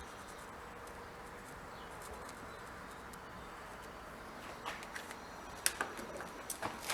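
Faint steady hiss, then a handful of short sharp clicks and taps in the last two seconds, like small metal tools being handled against a part.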